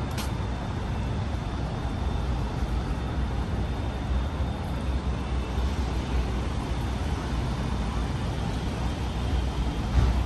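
City street ambience: a steady low rumble of traffic, with a short click about a quarter second in and a brief thump near the end.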